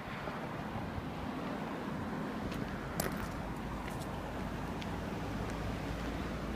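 Steady outdoor background rumble of wind and street noise, with a few faint clicks around the middle.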